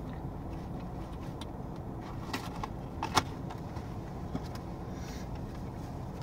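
Steady low rumble inside a parked car, with a few sharp clicks, the loudest about three seconds in. Near the end, a paper burger wrapper rustles as it is handled.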